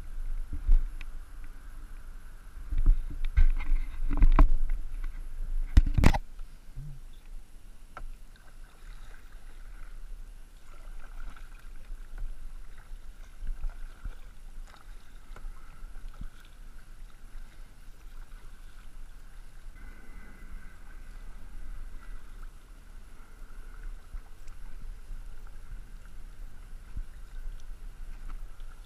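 A plastic sit-in kayak being paddled: paddle blades dipping and water lapping at the hull, under a steady low wind rumble on the microphone. A cluster of loud knocks comes in the first six seconds.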